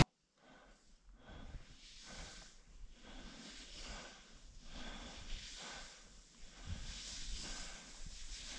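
A skier's faint, quick breathing, in and out about twice a second, as he stands catching his breath after skiing down.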